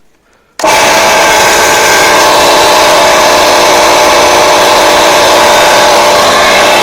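Electric piston air compressor switched on about half a second in, then running steadily and loudly, on its test run after being rebuilt and refilled with the crankcase oil whose lack had seized its crank.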